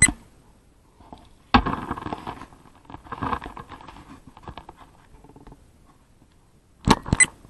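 Irregular crunching and scuffing on loose gravel, in a few short bursts, with two sharp clicks near the end.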